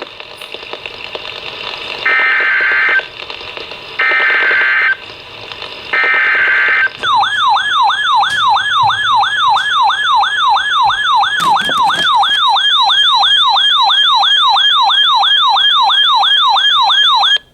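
Three one-second bursts of the NOAA Weather Radio SAME digital header, a harsh data buzz about two seconds apart, which signal a new alert being sent. Then an alert siren starts: a quickly repeating rising whoop, about three a second, with a short click about halfway through.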